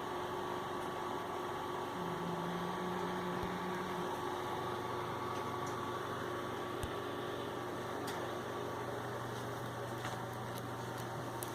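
Steady electrical hum of indoor room tone, with a low tone that steps down in pitch about four seconds in, and a few faint ticks.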